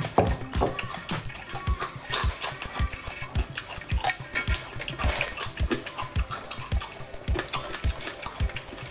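Many small live crabs clicking and clattering, shells and legs against each other and the metal pot, as hands stir through them; the clicks come thick and irregular.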